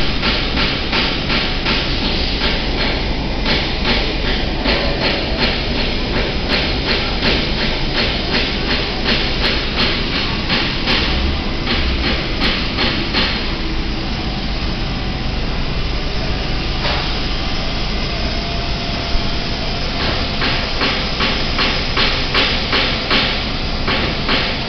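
Loud, steady machinery noise with a fast run of sharp knocks, several a second, which eases off in the middle and picks up again near the end.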